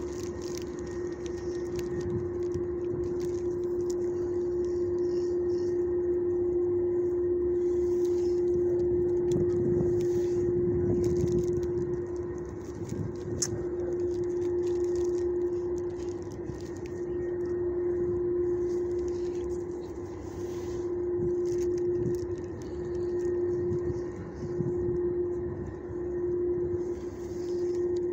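A steady mechanical hum holding one pitch throughout, with irregular rustling and handling noise over it.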